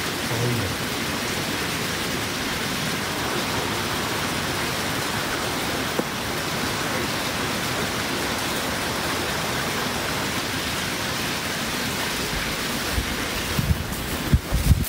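A steady, even hiss like rain, with a few low bumps near the end.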